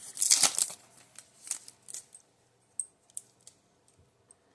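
Foil wrapper of a Yu-Gi-Oh booster pack being torn open and crinkled, a loud rustle in the first half second, followed by sparse light crackles and clicks as the cards are handled.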